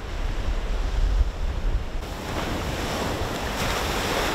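Ocean surf breaking and washing in at the shoreline, with wind rumbling on the microphone for the first two seconds; in the second half the hiss of a breaking wave swells up and holds.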